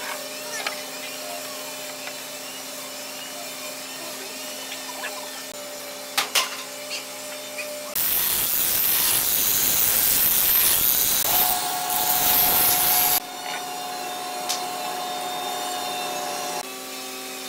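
Handheld angle grinder with a sanding disc running against the edge of a hardwood board for about five seconds, starting about eight seconds in and cutting off abruptly. Earlier there are a couple of sharp knocks, and a steady hum runs under the rest.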